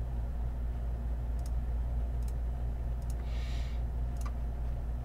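A few sparse computer mouse clicks over a steady low hum, with a short hiss about three seconds in.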